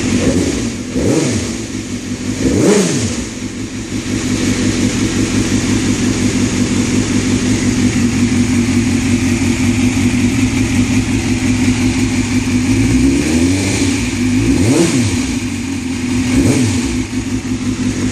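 2001 Suzuki GSX-R inline-four engine idling, with the throttle blipped several times so the revs briefly rise and fall: twice in the first three seconds and three times near the end.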